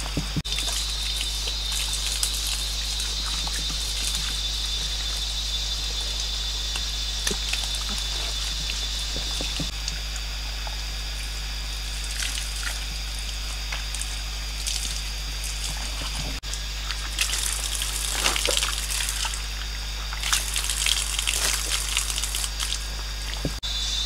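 Water pouring from a bamboo spout and splashing onto hands and stones, with bursts of louder splashing later on, over a steady high-pitched insect whine.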